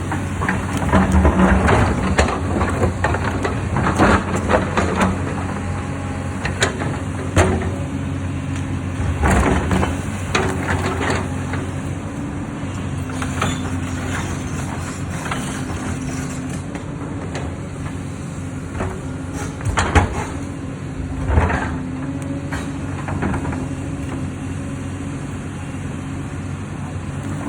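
Hyundai hydraulic excavator's diesel engine running steadily, with repeated knocks and clatter of stone. The knocks are thickest in the first half, with the loudest about two-thirds of the way through.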